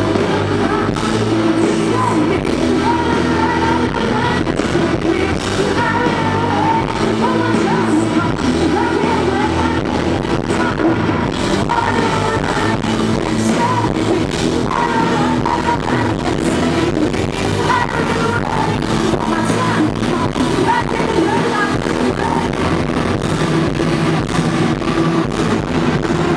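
Live rock band playing a song with a male lead vocal, amplified through the club's PA and heard from within the crowd. It runs loud and steady, with a regular drum beat under the sung melody.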